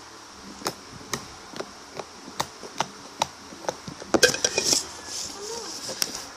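Homemade slime being squeezed and pressed by hand, giving sharp wet clicks and pops about twice a second, with a quick burst of crackling pops a little past four seconds in.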